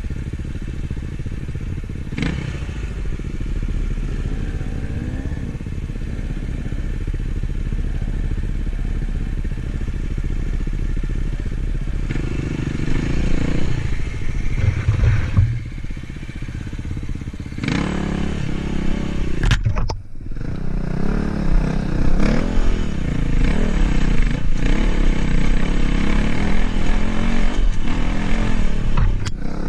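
Dirt bike engine running under constantly changing throttle while riding a rough trail, getting louder in the second half. Occasional sharp knocks and clatter come from the bike over the rough ground.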